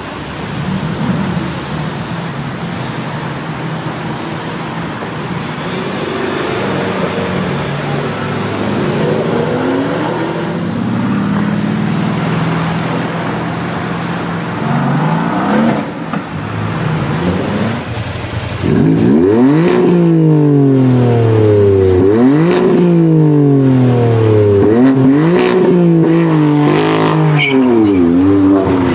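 High-performance car engine running and picking up speed, then revved hard over and over from about two-thirds of the way through: each rev climbs quickly and falls away over a couple of seconds. A few sharp cracks come near the end.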